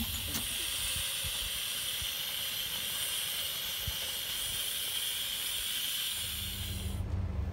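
Polly 4 miniature live-steam locomotive giving off a steady hiss of escaping steam. The hiss cuts off suddenly near the end, where a low steady hum takes over.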